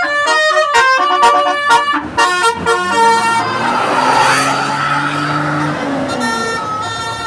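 Bus basuri multi-tone musical horn playing a quick melody of stepped notes, then a rushing noise with a low drone that fades near the end.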